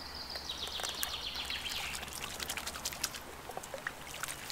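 Water splashing and trickling around hands held in a river as a brown trout is let go, with a run of small sharp drips and splashes from about two seconds in. A bird sings one falling phrase during the first two seconds.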